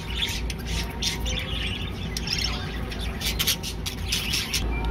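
Budgerigars chattering, a quick irregular run of short high chirps and squawks.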